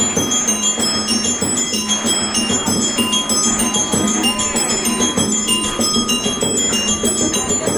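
Background music: a bright, bell-like tune of quick short notes over a steady low tone.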